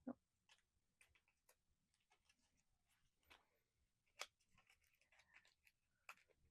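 Faint, scattered clicks and taps of small cardboard blind-box packaging being handled and opened, the sharpest just at the start and about four seconds in.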